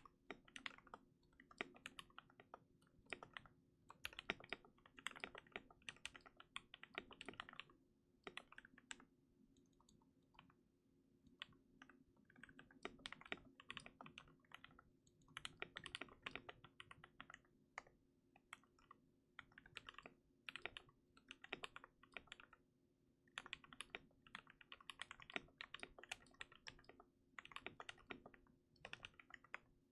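Typing on a KBD67 MKII custom mechanical keyboard with lubed and filmed Gateron Yellow linear switches on a brass plate, with silicone case dampening: runs of quick keystrokes broken by short pauses.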